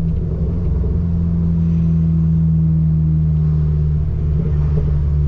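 Abarth 595 Turismo's turbocharged 1.4-litre four-cylinder running through an aftermarket cat-back exhaust, holding steady revs with a deep, even drone.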